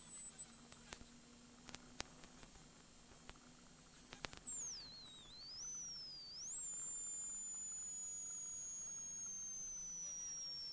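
Peugeot 106 XSi rally car heard from inside the cabin as a thin high whine. The whine is steady at first, dips and rises twice about halfway through, jumps back up, then sinks slowly in pitch as the car eases off. A few sharp clicks come in the first half.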